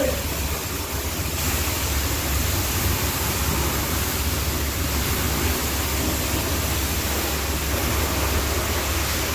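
High-pressure water spray from a car-wash wand hissing steadily against a car, with a steady low hum underneath.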